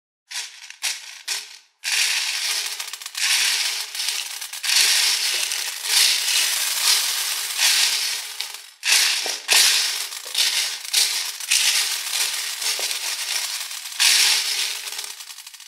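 Small plastic beads rattling and clattering as a plastic scoop stirs through them in a plastic tray. A few separate clicks come first, then a dense, continuous clatter with a brief pause about nine seconds in, dying away at the end.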